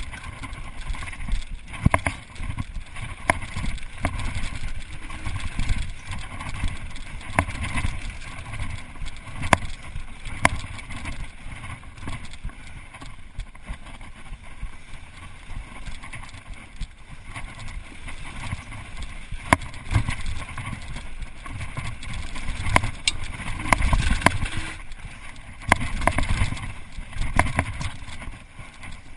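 Mountain bike running fast down a dirt forest trail: a steady rush of tyres and air, broken by frequent sharp clicks and rattles from the bike over bumps, thickest about three quarters of the way through.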